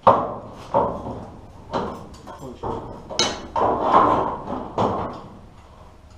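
Sheet-steel knocks and scrapes as a new rocker panel is worked into place on a 1939 Dodge truck cab. There are about half a dozen sharp metallic clanks over the first five seconds and a longer scrape around four seconds in.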